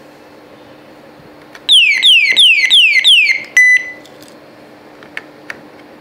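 Laptop anti-theft display alarm box sounding its siren: five loud falling whoops, about three a second, then a single short beep. A couple of light clicks follow near the end.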